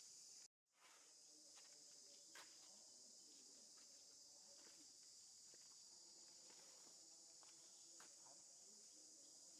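Near silence apart from a faint, steady high-pitched insect buzz and a few soft ticks; the sound cuts out completely for a moment about half a second in.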